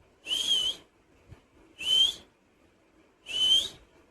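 Pet parrot giving three short, shrill whistled calls about a second and a half apart, each rising slightly at the end.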